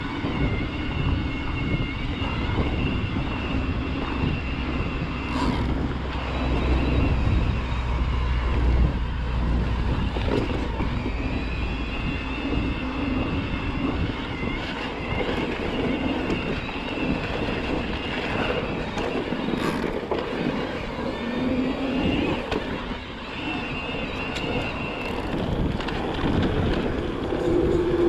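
Electric mountain bike ridden along a dirt trail: wind buffeting the microphone and the bike rattling over the ground, with a thin motor whine that drifts up and down in pitch. A couple of sharp knocks come from bumps in the track.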